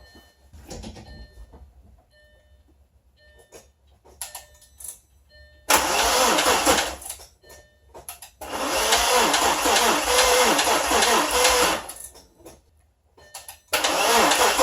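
Audi B5 S4's 2.7-litre twin-turbo V6 being cranked over by the starter in three bursts without firing: one of about a second and a half, one of about three seconds, and a third starting near the end. The car has sat in storage and may be short of battery.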